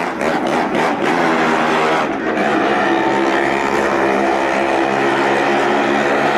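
Motorcycle engine running hard as it circles the vertical wall of a well-of-death pit, a loud, steady drone with brief dips near the start and about two seconds in.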